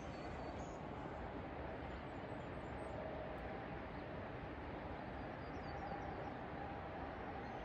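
Steady rushing outdoor background noise, with a few faint high bird chirps.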